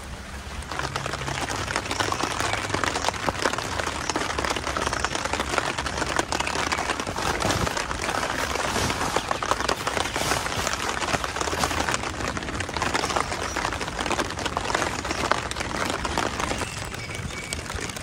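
Steady rain pattering on a tent and its tarp.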